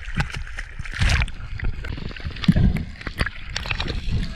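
Choppy seawater slapping and splashing against a camera held at the surface, with a steady low rumble on the microphone and many small clicks and bubbles. There is a louder splash about a second in.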